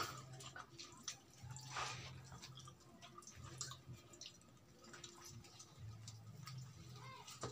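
Faint eating sounds of fried chicken: wet chewing and lip-smacking in scattered short clicks, with soft tearing as the meat is pulled apart by hand.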